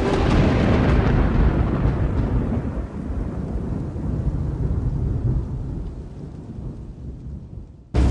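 Rolling thunder: a sudden deep rumble that slowly dies away over about eight seconds.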